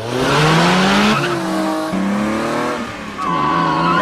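Car engines revving hard through gear changes, their pitch climbing, dropping back and climbing again, with tyres squealing near the end during a car chase between a Peugeot 406 and a BMW 5 Series sedan.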